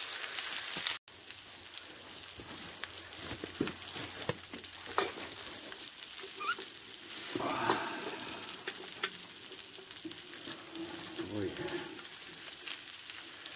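Chicken wings and vegetable rice sizzling in a frying pan on a wood-burning stove, with occasional clicks and scrapes of a knife and spoon against the pan.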